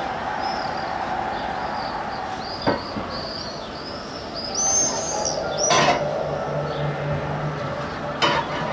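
Small birds chirping over and over against a steady noisy background, with sharp clicks about three, six and eight seconds in; the click near six seconds is the loudest and is followed by a brief low hum.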